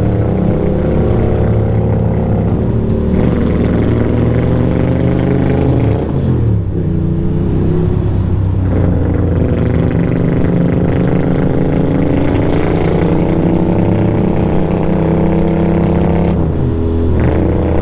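Ducati Monster 620's air-cooled L-twin engine running under way at road speed, heard from the rider's seat over wind and road noise. Its pitch dips and climbs again about six seconds in, and once more near the end.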